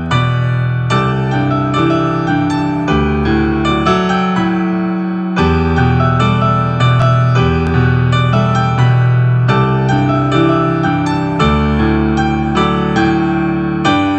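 Digital keyboard playing a piano sound with both hands: melody notes over held low bass notes that change every second or two.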